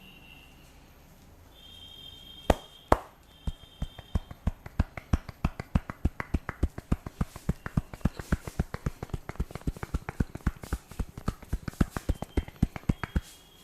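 A barber's hands tapping sharply and rapidly on a head during an Indian head massage. Two loud strikes come about two and a half seconds in, then a steady run of about four or five taps a second that stops just before the end.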